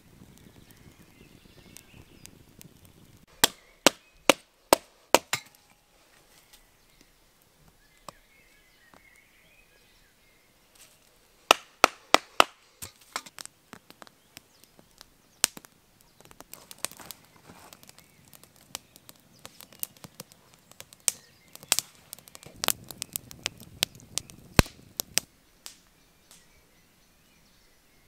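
Campfire of dry conifer twigs and kindling crackling, with sharp, loud pops that come in clusters.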